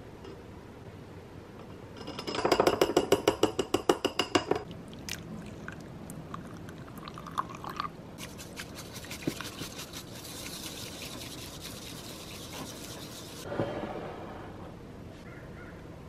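A loud, fast rhythmic scraping for about two seconds near the start. Then hot water is poured from a gooseneck kettle into a stoneware bowl of matcha powder. Then a bamboo matcha whisk beats the tea quickly against the bowl, a fast brushing rasp lasting about five seconds.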